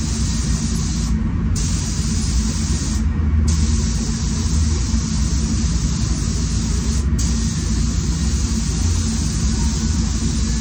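Steady rush of a paint booth's ventilation fans with the air hiss of a SATA Jet 5000 RP spray gun. The hiss cuts out briefly three times as the trigger is let go between passes.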